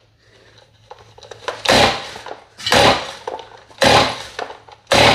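Stihl MS271 chainsaw's recoil starter cord pulled four times, about a second apart, at half choke. The engine does not catch: the saw won't start.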